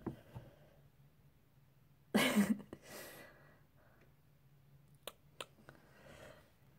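A short voice-like sound about two seconds in, followed by a soft breath, then two sharp clicks about five seconds in, over a faint steady hum.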